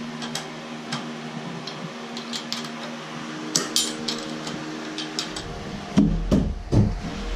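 Scattered metal clinks and taps from hand tools working the bolts of an aluminium boat compression post, with a few heavier knocks about six seconds in.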